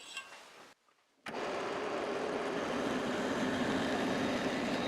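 Benchtop drill press running, drilling a screw hole into a wood block. It is a steady machine hum that starts abruptly about a second in, after a brief silence.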